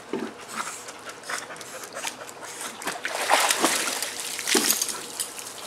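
Pool water splashing and sloshing as dogs swim and paddle, growing louder about three seconds in as a dog clambers out onto the pool edge.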